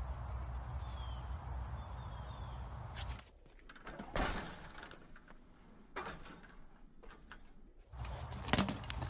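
Outdoor ambience of low wind rumble with a few short bird chirps. About three seconds in, it gives way to a quieter, duller stretch of scattered clicks and knocks from the BMX bike. Near the end the rumble returns with one loud knock.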